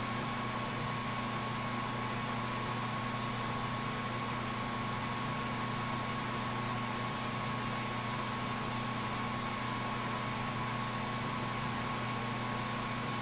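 Oxygen-fuel lampworking torch burning steadily: an even hiss with a constant low hum and a thin steady tone underneath.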